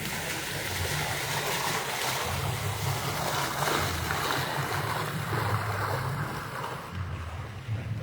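Wind buffeting the microphone, an uneven low rumble under a steady rushing hiss. The hiss dies down about seven seconds in.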